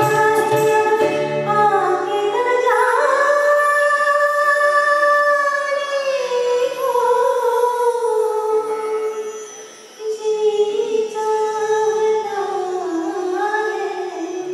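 An older woman singing solo into a handheld microphone, holding long drawn-out notes that slide slowly in pitch. There is a short break for breath about ten seconds in.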